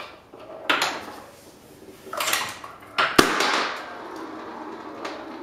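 Balls rolling and knocking down the wooden ramps of a homemade chain-reaction machine, then a balloon bursting with a sharp pop about three seconds in as a needle on a turning wheel pierces it. A steady rattling goes on after the pop.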